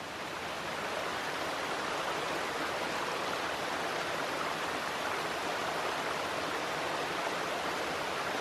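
Small mountain stream splashing over rocks in small cascades, a steady rush of running water.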